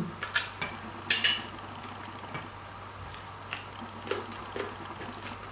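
A few light, scattered clinks of cutlery against plates and dishes, the loudest about a second in.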